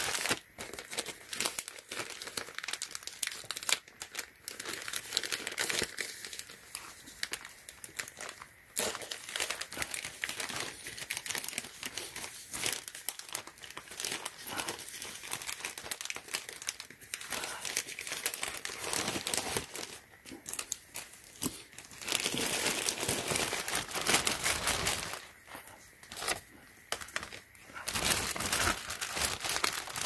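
White plastic mailer bag and plastic wrapping crinkling and rustling as they are handled and opened, louder in stretches about two-thirds of the way through and near the end.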